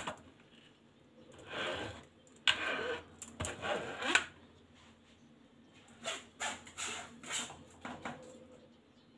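A spoon scraping and pressing blended pulp through a wire-mesh sieve and against a plastic bowl: a few scraping strokes in the first four seconds, then scattered light taps and knocks.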